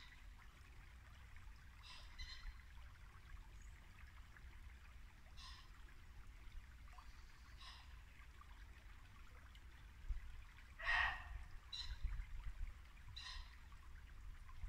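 Muntjac deer barking: short single barks repeated every two to three seconds, about six in all, the loudest about eleven seconds in. Under them runs the steady babble of a shallow brook.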